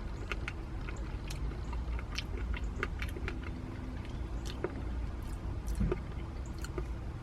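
A person eating a spoonful of Blizzard soft-serve ice cream: quiet chewing and small scattered clicks, likely from the spoon, over a steady low hum.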